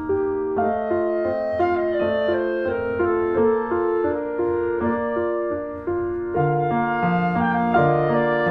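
Background music: a gentle piano-and-woodwind melody, with lower notes joining about six seconds in.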